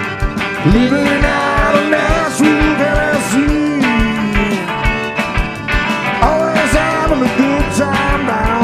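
Live southern rock band playing: an electric guitar lead with long, bending notes over the band and a steady kick-drum beat.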